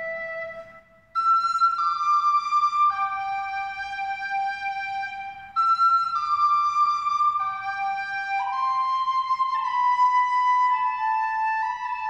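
Music: a slow melody of long held notes on a flute-like wind instrument, with a short break about a second in.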